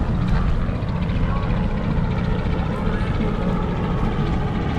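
Steady low rumble of wind buffeting the microphone on a moving bicycle, with faint voices of people nearby.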